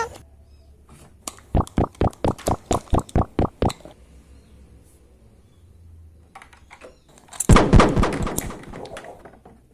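A quick, even run of about a dozen sharp clicks, roughly six a second, then a short, denser clatter of clicks near the end that fades out.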